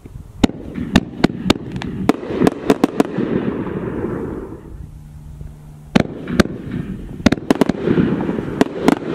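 Canister aerial firework shells bursting, with a rapid string of sharp pops and crackles. The crackling eases to a lull, then a loud bang comes about six seconds in, followed by more crackling pops.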